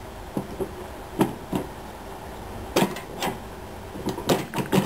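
Acrylic top plate of an electrolysis cell being fitted down over its steel rods: a series of light plastic-and-metal clicks and knocks, more of them close together near the end.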